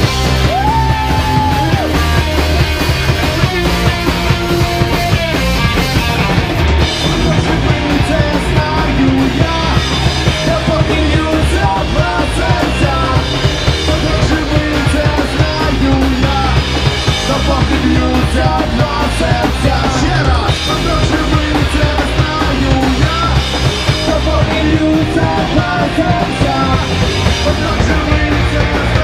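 A punk rock band playing loud, fast music with electric guitar and drums, continuing without a break.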